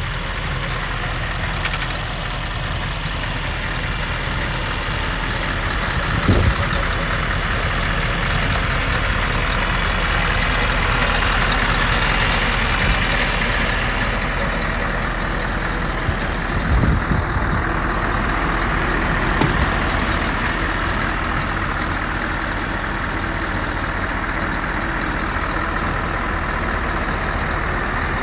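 Scania R520's V8 diesel engine idling steadily, with a couple of brief low thumps.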